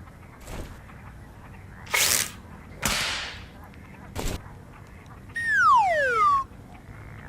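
Cartoon sound effects: two sharp swishing hits about a second apart and a short click, then a falling whistle-like tone that glides down for about a second.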